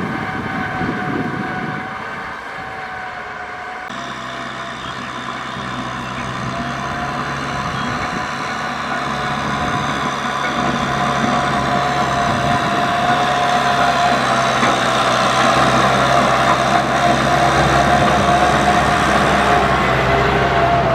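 Kubota M6040SU tractor's diesel engine running under load while ploughing, with a steady whine over it. The engine note changes about four seconds in, and the sound then grows steadily louder.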